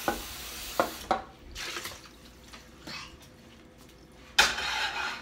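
A frying pan being handled at the stove: a few sharp knocks and clinks, with a hiss near the start and a louder, brief rush of hissing near the end.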